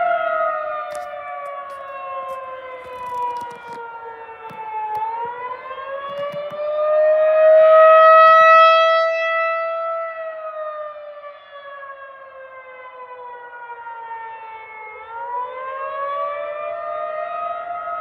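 Federal Signal 2001-130 outdoor warning siren sounding during a test. Its tone slides down for about five seconds, climbs back and holds for a couple of seconds, then slides down and up again. The loudness swells and fades as it goes, loudest a little before the middle.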